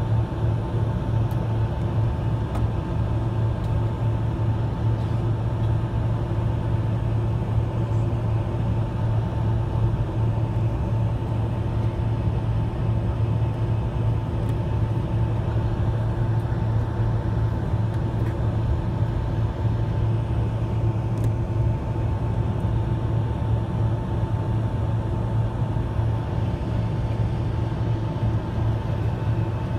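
Steady cabin noise inside a taxiing Boeing 767-300ER: a constant low hum of the engines at taxi power and the cabin air, with a faint steady whine above it.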